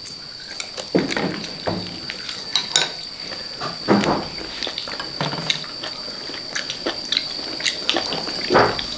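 Close-up eating sounds: a man chewing and slurping a bowl of phở, with irregular light clicks of chopsticks against the porcelain bowl.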